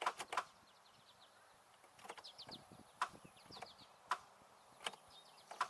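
A few isolated sharp clicks, roughly a second apart, with no cranking or running engine between them: the 2002 Chevy Malibu's starter clicking as the key is turned but not turning the engine over, which the owner puts down to a weak starter.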